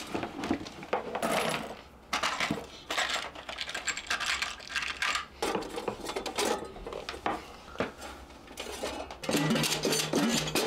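Small metal parts clinking and rattling as a cooking appliance's fan and heating-element assembly is handled and taken apart, in a run of irregular clicks and clatters.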